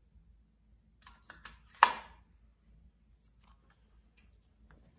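Sharp metallic clicks and one louder clack about two seconds in, then a few faint ticks: a steel valve being set down into its freshly dyed seat in the 1938 Plymouth's cast-iron flathead engine block, and a suction-cup lapping stick being pressed onto the valve head.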